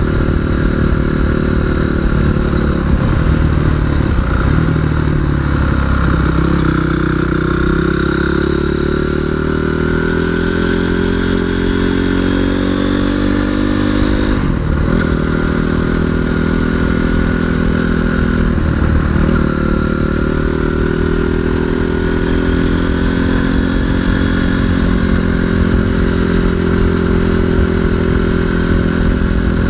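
Single-cylinder 250 cc off-road motorcycle engine running while riding, its pitch climbing steadily after about six seconds and dropping briefly a few times, including once near the middle.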